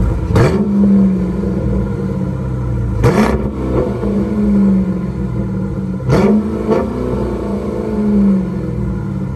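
A 2021 Dodge Durango R/T's 5.7-litre Hemi V8 through a Kinney's Tunnel Ram performance exhaust with 5-inch tips, revved three times about three seconds apart. Each time the pitch sweeps quickly up and back down, then the engine settles into a steady idle rumble between the revs.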